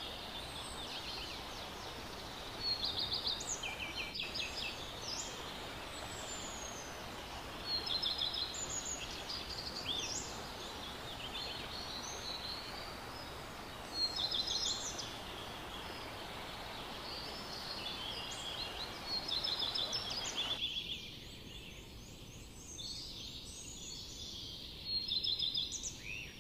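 Birds calling: clusters of quick chirping trills and short whistled phrases, some rising and some falling, over a steady background hiss. The hiss drops suddenly about twenty seconds in.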